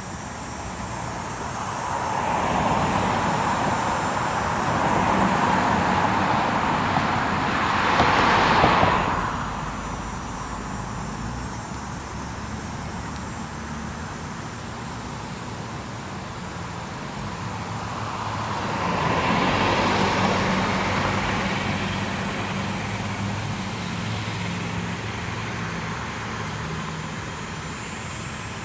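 Road traffic: a vehicle passes, its noise rising and fading over several seconds and peaking just before halfway through the first third, then a second, quieter pass a little after halfway, with a low engine hum under it.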